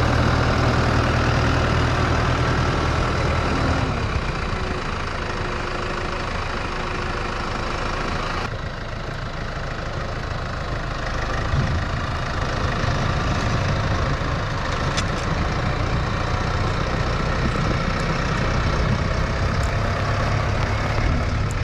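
Engine of a four-wheel-drive cab vehicle running steadily while plowing heavy, wet snow, a low hum under a steady hiss.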